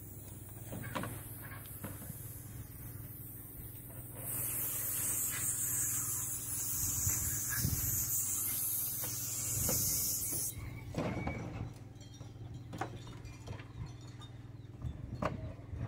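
Water hissing from a garden hose spray nozzle as a butchered quail carcass is rinsed. The spray starts about four seconds in and cuts off suddenly some six seconds later, with a few light knocks around it over a low steady hum.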